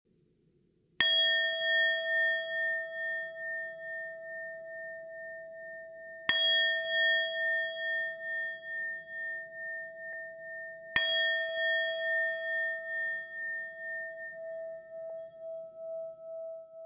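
A struck metal bell-like tone sounding three times, about five seconds apart, each stroke ringing on in a long, wavering decay.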